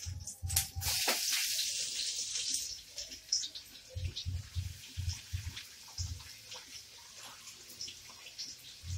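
Chopped onion and garlic going into hot oil in a pan: a loud burst of sizzling about half a second in that settles after a couple of seconds into quieter crackling as they fry.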